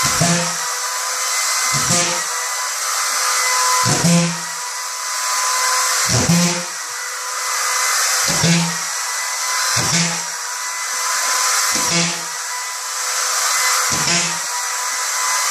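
Corded DeWalt drywall screw gun running with a steady high whine, with a short lower burst about every two seconds as each screw is driven into the drywall, eight screws in all.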